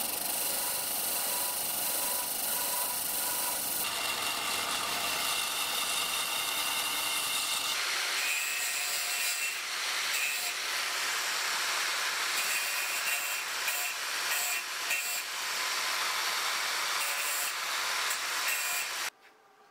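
A bench disc sander grinds the steel end of a billhook tang. Then a Bosch angle grinder grinds the tang tip, throwing sparks. The grinding cuts off suddenly about a second before the end.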